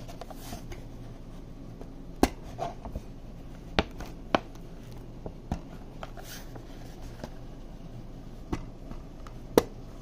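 Clips on a fabric lampshade being snapped onto a metal wire frame: a handful of sharp, irregular clicks, the loudest four spread through, with softer handling and rustling between.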